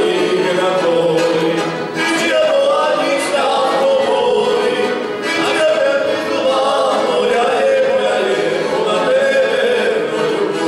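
Two male voices singing a Rusyn folk song together into microphones, the singing continuous with only brief breaths between lines.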